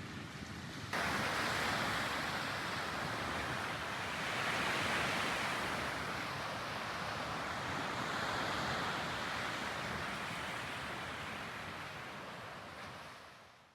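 Sea waves washing onto a beach, swelling and receding twice, then fading out.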